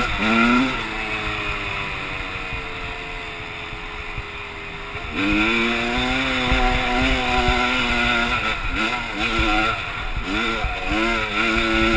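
Honda CR250 two-stroke dirt bike engine being ridden hard: its pitch sinks and it quiets for a few seconds as the throttle eases, then it picks up loudly about five seconds in. Near the end the revs rise and drop quickly several times.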